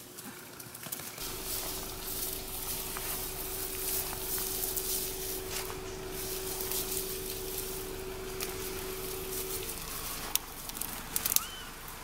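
Rustling and crackling of grass and leaf litter as Japanese macaques forage through it, with two sharp snaps near the end. A steady low hum runs under most of it and stops a couple of seconds before the end.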